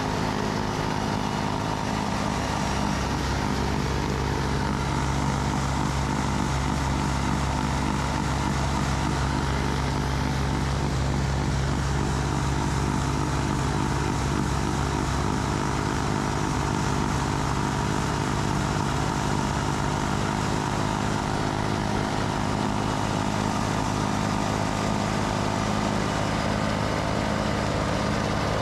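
Massey Ferguson GC2400 compact tractor's three-cylinder diesel running steadily at high RPM, driving its snowblower.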